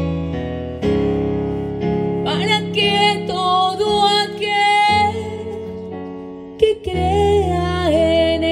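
A hymn on electric keyboard, sustained chords changing every second or so, with a singer holding long, wavering notes over it for a few seconds at a time.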